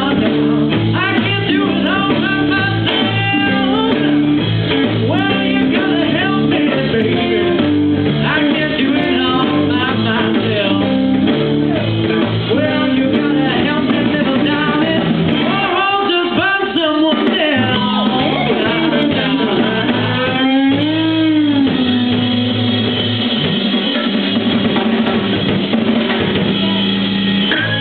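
Live blues band playing: guitar and drum kit with singing. In the last several seconds the band holds one long low note.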